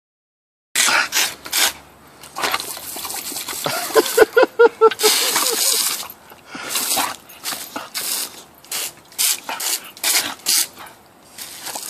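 Garden hose spray nozzle squirting water in short on-off bursts at a boxer puppy, which lets out a quick run of short barks about four seconds in.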